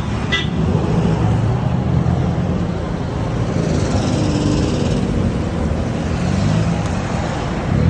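Steady rumble of car engines running, with road traffic noise.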